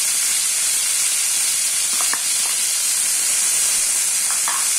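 Cooked sweet corn kernels sizzling in hot oil in a non-stick frying pan with onion and curry leaves, just added: a loud, steady, high hiss. A few faint clicks sound about two seconds in and again near the end.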